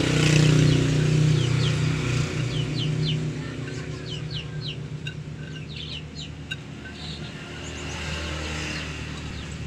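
A vehicle engine running, loudest in the first few seconds and then fading, while birds chirp with many short quick calls through the middle of the stretch.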